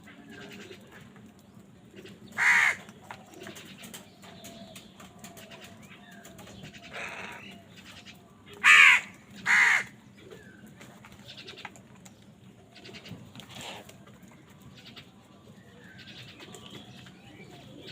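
Crows cawing: three loud harsh caws, one about two and a half seconds in and two in quick succession around nine seconds in, with fainter calls in between.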